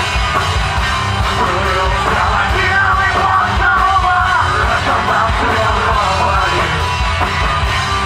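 Live rock band playing: electric guitar, bass guitar and drum kit, with the lead singer's voice coming in loud over the band about two seconds in.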